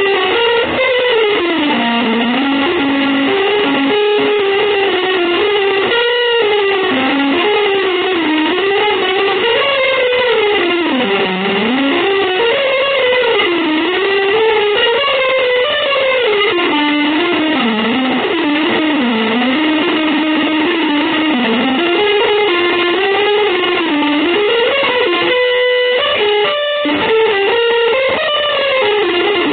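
Electric guitar with distortion and effects playing one continuous, winding melodic line of sustained, gliding notes, with brief breaks about six seconds in and near the end.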